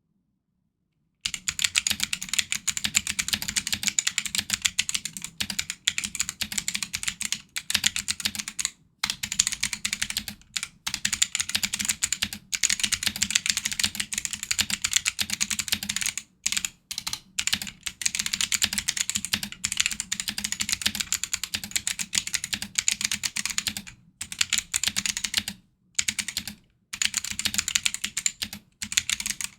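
Fast, continuous typing on a Drop ALT mechanical keyboard with stock, unlubed Kailh Box Jade clicky switches and PBT keycaps: a dense stream of sharp clicks, starting about a second in and broken by short pauses every few seconds.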